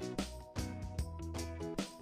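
Background music with a steady beat, with plucked guitar-like notes.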